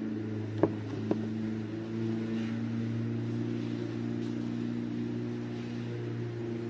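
Lawn mower engine running steadily. Two sharp clicks sound about half a second apart under a second in; the first is the loudest sound.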